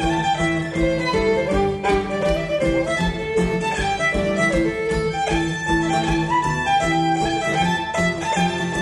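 Fiddle, acoustic guitar and cello playing a lively tune together. The fiddle carries the melody over a steady strummed guitar rhythm and held cello notes.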